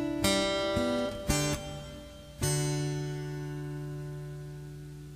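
Acoustic guitar playing a few notes, then a chord about two and a half seconds in that rings on and slowly fades.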